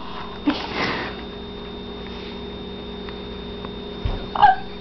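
A person's short sniff about a second in, over a steady electrical hum; near the end a soft low bump and a brief vocal sound.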